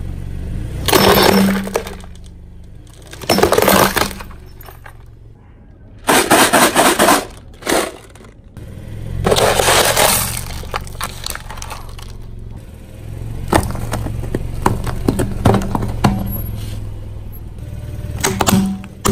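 A car tyre rolling over and crushing objects on concrete, among them a cardboard gift box and a clear plastic item: loud crunching and cracking in five or six separate bursts a few seconds apart. A low steady hum from the car runs underneath.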